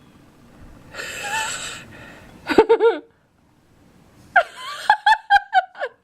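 A woman laughing: a breathy gasp, then high-pitched bursts of laughter, the last ones a quick run of short pulses near the end.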